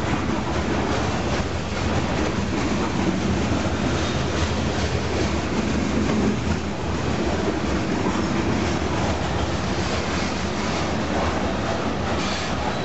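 Covered hopper cars of a freight train rolling past at close range: a steady rumble and rattle of steel wheels on the rails.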